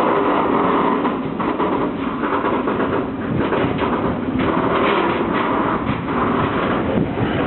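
Loaded ballast train rolling past close by, wagon wheels clattering over the rail joints, with a squeal that comes and goes several times.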